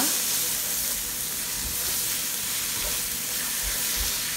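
Sliced onions and ground spice powders sizzling in hot oil in a non-stick pan, stirred steadily with a wooden spatula, with a few soft knocks of the spatula against the pan. The powders are being fried into the sautéed onions to build the masala.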